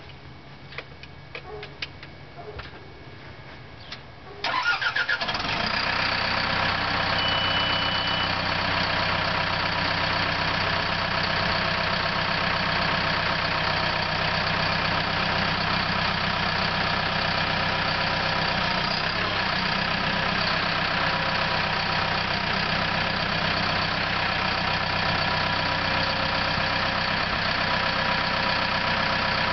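A few light clicks, then the CAT D4K dozer's diesel engine starts about four and a half seconds in and settles into a steady idle. A short high beep sounds briefly soon after it starts.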